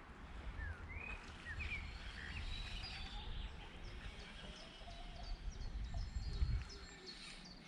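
Outdoor background noise with a low steady rumble, and a few short bird chirps, most of them about a second in.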